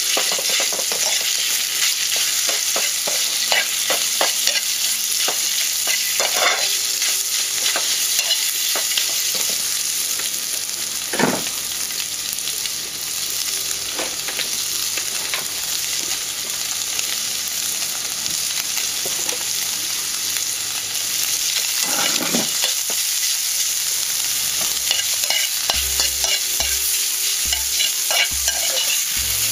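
Minced pork and pounded chillies sizzling in a hot metal frying pan, with a metal spatula scraping and clinking against the pan again and again as the meat is stirred and broken up.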